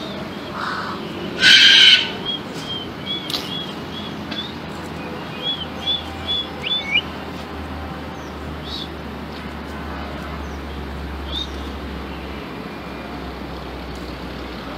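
Galah (rose-breasted cockatoo) giving one short harsh screech about a second and a half in, followed by a run of short high chirps over the next few seconds, then only a steady background hiss.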